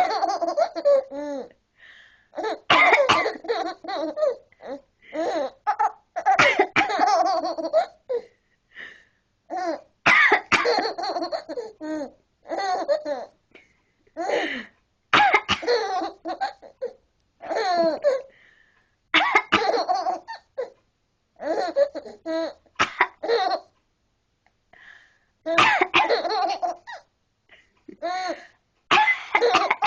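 A seven-month-old baby laughing in repeated fits, each set off by a person's short coughs. This happens about a dozen times, one bout every two to three seconds, with brief quiet gaps between.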